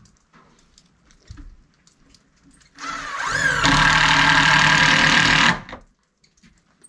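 Cordless drill running in the wooden heater cover: the motor rises in pitch as it spins up, then runs steadily for about three seconds and stops. A few faint knocks come before it.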